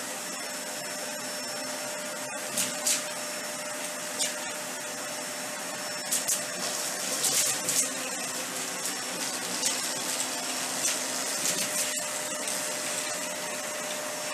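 Dyson Ball Animal 3 upright vacuum running steadily on low-pile carpet on its middle suction setting, with a steady whine over the rush of air. Scattered sharp clicks and rattles come as Fruit Loops cereal is sucked up through the cleaner head, thickest about six to eight seconds in.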